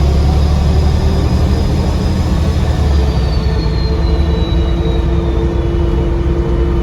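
Bus diesel engine running under load, a heavy low drone with a loud, high turbocharger whistle over it. The whistle holds steady, then falls in pitch from about three seconds in as the engine eases off. Heard from inside the bus.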